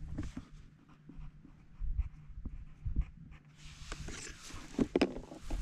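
A dog panting, over low, gusty rumbling of wind on the microphone.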